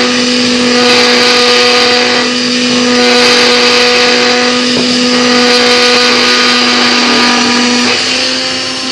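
Proxxon MF-70 CNC micro mill running and milling 3 mm acrylic sheet: the spindle and cutter make a loud, steady whine over a hiss, and the pitch of the whine shifts a little before the end.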